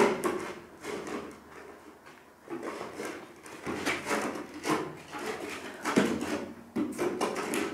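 Irregular scraping, rubbing and knocking as orange PVC drain pipe and fittings are handled and worked, in short uneven bursts.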